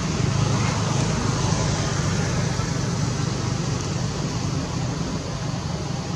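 Steady low rumble with an even hiss above it, unchanging throughout, like distant road traffic or machinery.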